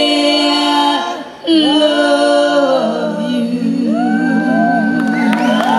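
Female lead singer and backing singers singing long held notes in a live soul performance, heard through the stage PA. The sound dips briefly about a second and a half in, then a wavering held note carries on.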